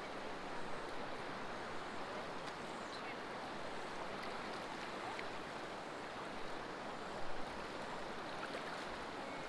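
Steady rushing of river water, an even hiss with a brief louder bump about seven seconds in.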